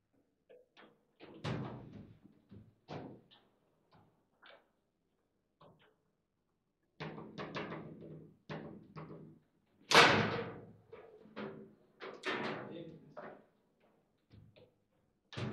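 Foosball table in play: the hard ball striking the players' figures and the table walls, with the rods clacking, in a run of sharp, irregular knocks. A short lull comes about six seconds in, and the loudest hit about ten seconds in.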